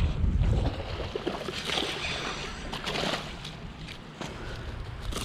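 Wind buffeting the microphone, a low rumble strongest in the first second, over scattered rustling outdoor noise.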